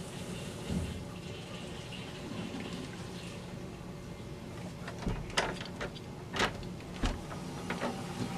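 Water running steadily in a bathroom, then a few sharp clicks and knocks from about five seconds in as the bathroom door is unlatched and swung open.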